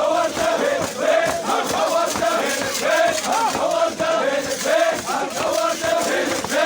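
A crowd of men chanting and shouting together in a traditional Iraqi 'arada war chant, many voices overlapping without a break.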